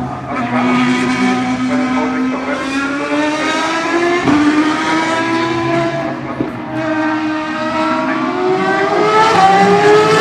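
Ferrari race car engine running at high revs on track. Its pitch sinks slowly over the first half, with a brief sharp crack about four seconds in, then climbs steadily through the last few seconds as the car accelerates.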